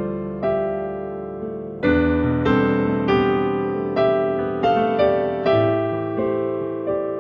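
Piano playing a slow, gentle piece: chords and single notes struck every half second to a second, each ringing and fading.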